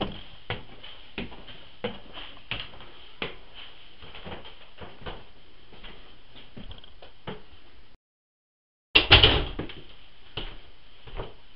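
Footsteps on wooden stairs and floorboards, about one and a half steps a second, heard through a handheld camera. After a second of dead silence, a loud bump and clatter about nine seconds in, then a few lighter knocks.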